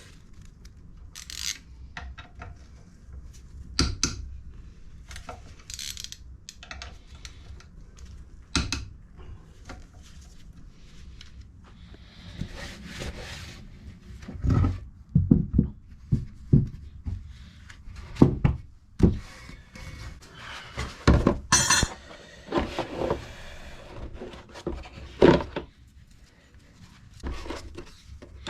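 Metal engine parts and hand tools being handled on a workbench: scattered clinks, knocks and clatters as pieces are picked up and set down, with some rubbing and scraping between them.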